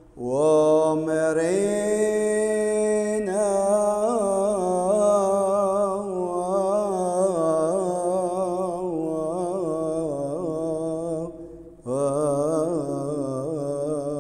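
Solo voice singing a slow, ornamented Syriac Orthodox liturgical chant. The held notes waver in melismas, and there is a short pause near the end before the next phrase begins.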